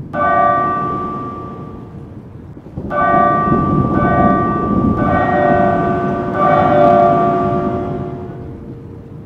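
A large bell tolling, like a clock striking the hour: about five strokes, each ringing on and fading slowly, over a low rumbling background.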